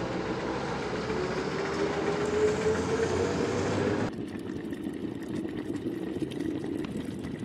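Street traffic with a trolleybus driving past, its motor whine rising slowly. About four seconds in the sound cuts to a pot of soup boiling on a stove, a quieter bubbling with small pops.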